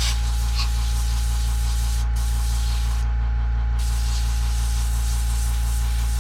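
Airbrush spraying paint, a steady hiss of air that stops briefly about two seconds in and again for most of a second about three seconds in as the trigger is let off. Under it, a steady low hum, typical of the 1/2 hp Makita air compressor with its 1-gallon tank running.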